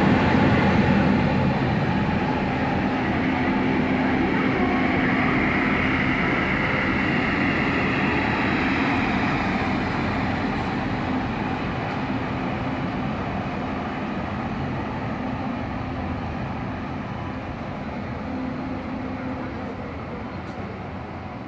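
Electric-hauled passenger express train moving off, its coaches rolling along the rails with a steady hum underneath. The sound slowly fades as the train draws away.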